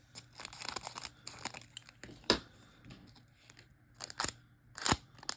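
Wrapper of a trading card pack being handled and opened: crinkling and rustling, broken by a few sharp crackles about two, four and five seconds in.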